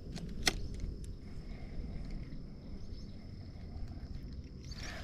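Outdoor pond ambience: a steady high-pitched insect trill over a low rumble, with one sharp click about half a second in. Near the end a broader rustling, splashing noise starts up.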